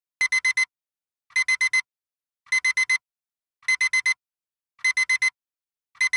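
Digital alarm-clock beeping starts suddenly: bursts of four quick high-pitched beeps, repeating about once every second. It is the countdown timer's alarm, signalling that the 24 minutes are up.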